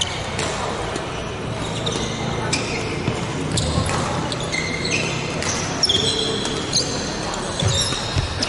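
Badminton rally: rackets hitting the shuttlecock with sharp, irregular smacks, and sneakers squeaking on the court floor, with short high squeaks coming often, most of all in the second half. Voices and play from the rest of the hall run underneath.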